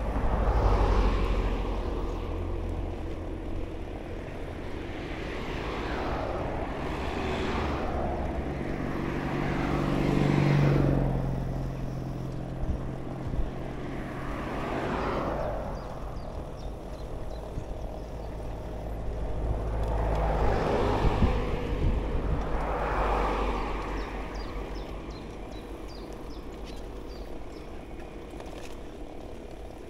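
Cars passing one after another on the road alongside, each swelling and fading as it goes by, over a steady low rumble of wind on the microphone. One passing vehicle about ten seconds in carries a rising engine note.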